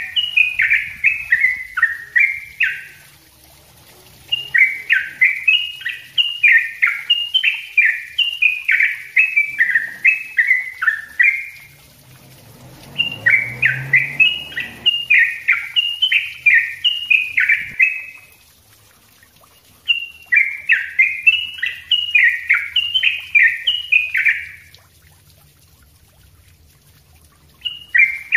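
Yellow-vented bulbul (trucuk) singing its rapid, dense chattering song: quick runs of short falling notes, several a second, in bouts of a few seconds broken by short pauses.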